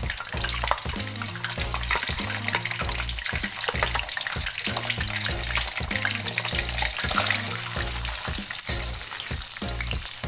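Raw peanuts frying in cooking oil in a wok: a steady crackling sizzle. Background music plays underneath.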